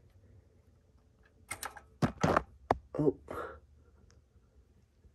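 A short cluster of clicks and knocks from hands and a tool working on the Toyota A340H automatic transmission's valve body, unfastening the shift solenoids. It starts about a second and a half in and lasts about two seconds.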